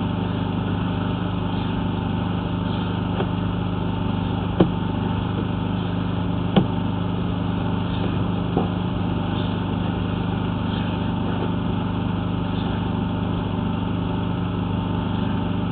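An engine running steadily, with two sharp clicks about four and a half and six and a half seconds in.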